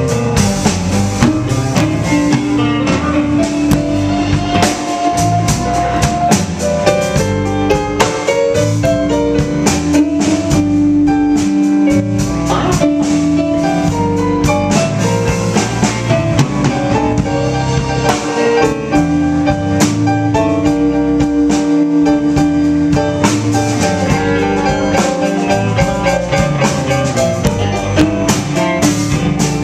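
Live blues band playing an instrumental passage between sung verses: guitars, bass, drum kit and piano, with a held melody note running through most of it.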